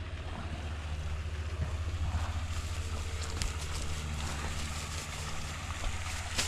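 Small vehicle engine running steadily with a low rumble. Light rattles and clicks are scattered over it in the second half.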